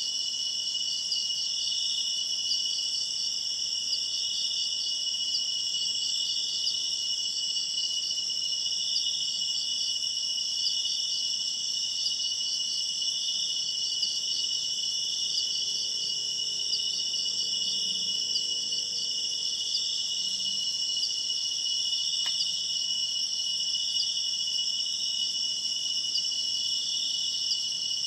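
Steady insect chorus: crickets trilling in several overlapping high-pitched pulsing bands, with one faint click about 22 seconds in.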